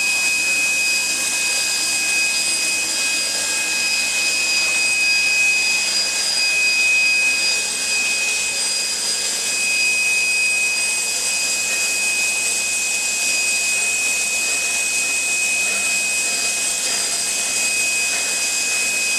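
Steady, even hiss of steam escaping from the standing steam locomotive 3265.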